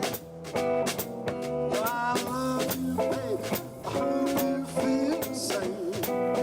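Live jazz trio playing a swing tune in G: walking upright bass and drums played with brushes keep a steady beat under a bending melody line.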